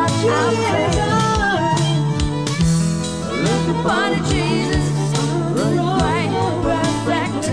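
A woman singing a Christian song with acoustic guitar, over a backing of steady bass notes and a regular beat.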